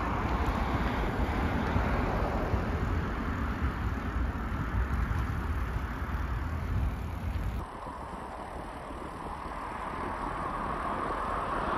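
Wind rushing over the microphone of a moving bicycle, with a heavy low rumble that cuts off suddenly about two-thirds of the way in. A softer rushing noise remains and swells toward the end.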